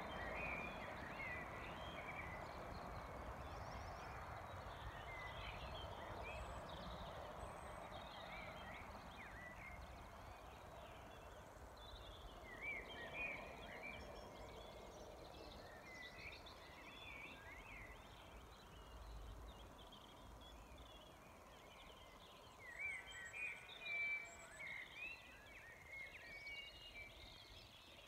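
Evening birdsong at sunset: several birds chirping and singing in short, high phrases, with a louder flurry of song a little past three-quarters of the way through, over a faint steady background hiss that slowly fades.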